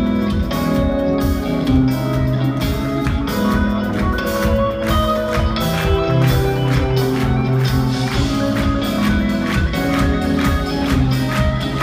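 A live instrumental progressive metal band playing loud: two electric guitars over a drum kit, with steady drum hits under sustained and fast-picked guitar notes.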